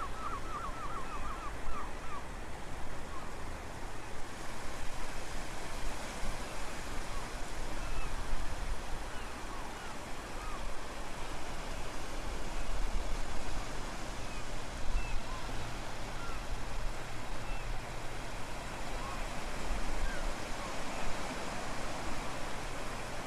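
Ocean surf breaking on a rocky shore, a steady rushing wash of water with faint short chirps scattered through it. A quick run of repeated dolphin chirps ends about two seconds in.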